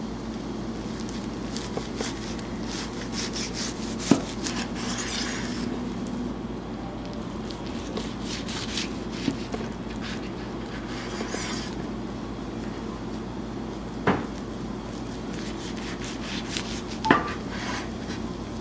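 Kitchen knife sawing through kimbap rolls of seaweed and rice on a wooden cutting board: scratchy slicing strokes, with a sharp knock of the blade on the board as a cut goes through, three times.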